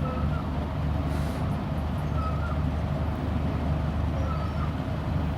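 Scania Omnidekka double-decker bus engine running steadily with an even low hum, heard from on board while the bus sits in slow traffic.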